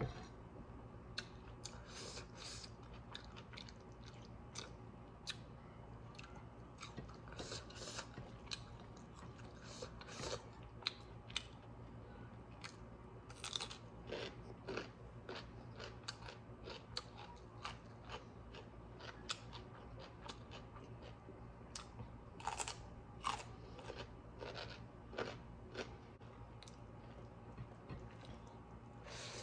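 Close-up eating: chewing and crunching a meal of greens and local chicken curry, with many irregular sharp clicks and smacks.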